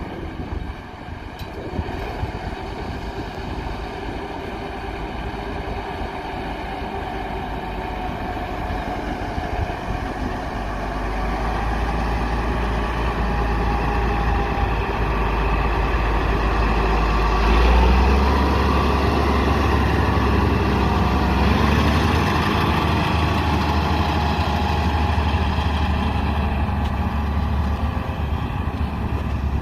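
Diesel engine of a heavy earthmoving machine running steadily, growing louder from about a third of the way in, with a deep low hum.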